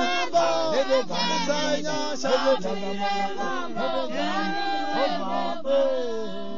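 Music: several voices singing together, with a steady held note beneath.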